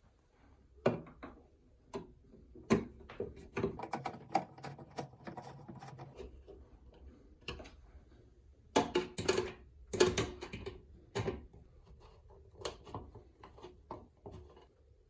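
Phillips screwdriver driving the screws that hold a bathroom exhaust fan's blower motor in its metal housing: irregular clicks and knocks of the driver and screws against metal. The knocks are densest and loudest a little past the middle.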